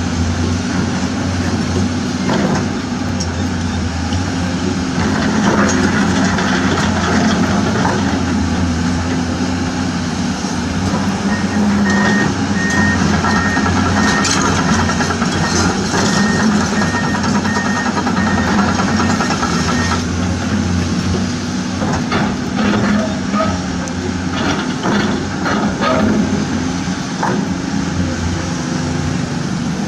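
Truck engine running steadily, with a reversing alarm beeping at an even pace for several seconds in the middle and scattered knocks near the end.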